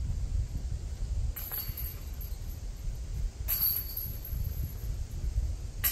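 Wind buffeting the microphone as a low, uneven rumble, with two brief scuffing noises and a sharp click just before the end.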